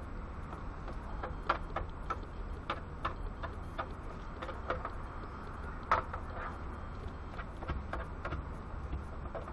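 A utensil clicking and scraping against a frying pan at irregular intervals as food is stirred, with a sharper knock about six seconds in, over a steady low hum.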